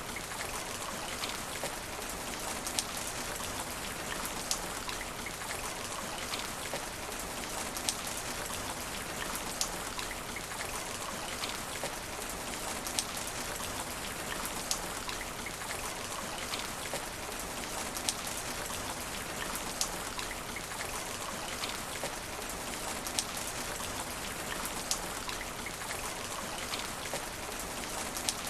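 Steady rain falling on asphalt: an even hiss of many drops. A single louder drop strikes about every second and a half to two seconds.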